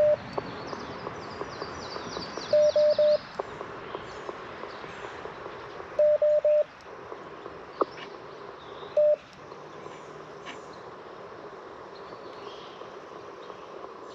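Morse code sidetone from an Icom IC-705 transceiver: short bursts of steady mid-pitched dits. Groups of three come about every three seconds, then a single dit about nine seconds in. These are short keyed test transmissions while the antenna's loading coil is tuned for a low SWR. Faint birdsong chirps in the background.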